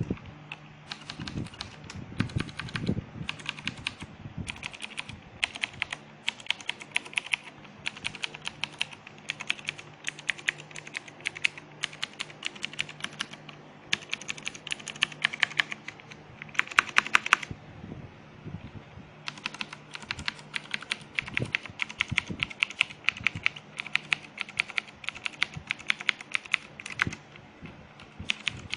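Typing on a Noppoo Mid 87 mechanical keyboard with clicky Cherry MX Blue switches: runs of sharp key clicks with short breaks between bursts, and a longer pause a little past halfway.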